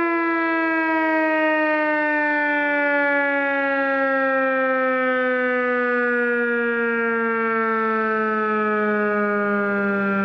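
Federal Signal 2001-SRNB rotating electromechanical warning siren sounding loudly, its pitch falling slowly and steadily as it winds down at the end of its monthly test.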